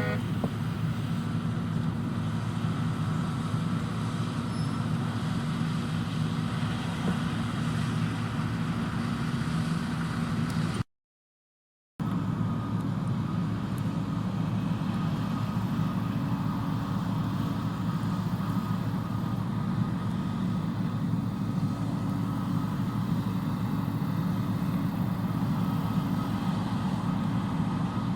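John Deere combine harvester running steadily at working speed, a constant engine drone. The sound drops out completely for about a second near the middle, then carries on unchanged.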